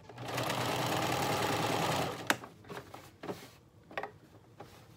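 Home sewing machine stitching elastic onto a satin waistband for about two seconds, then stopping. A sharp click follows, then a few lighter taps.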